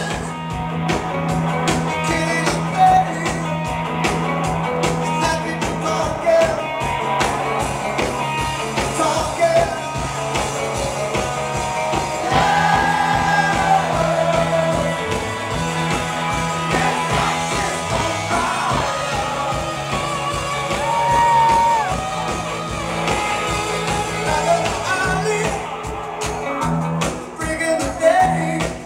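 Live band playing with a singer, heard from far back in a large concert crowd.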